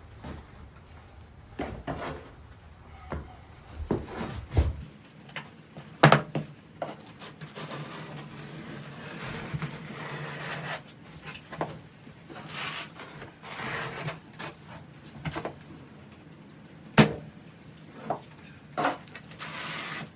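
Hand tiling work: a trowel scraping thinset mortar with scattered knocks and clacks as porcelain floor tiles are handled and set. The two sharpest knocks come about six and seventeen seconds in.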